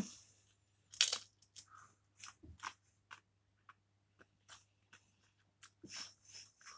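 A person biting into and chewing Pringles potato crisps. A loud crunch comes about a second in, followed by irregular smaller crunches as he chews.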